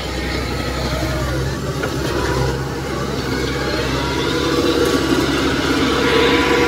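Kubota DC-105X combine harvester's diesel engine running steadily as the tracked machine drives past close by, growing a little louder toward the end.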